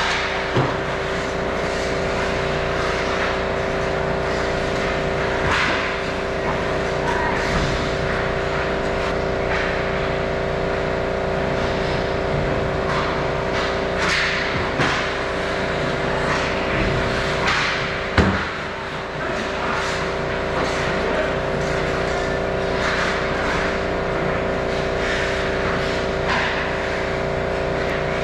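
Indoor ice rink during a hockey game: a steady mechanical hum of several fixed pitches underlies scattered scrapes of skates and clacks of sticks on the ice. About eighteen seconds in comes one sharp, loud knock, like a puck or a player hitting the boards.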